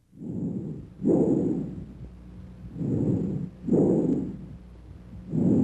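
Bronchial breath sounds as heard through a stethoscope over the manubrium: about three breaths, each a softer rush followed after a short silent gap by a louder, longer one. A faint steady hum lies underneath.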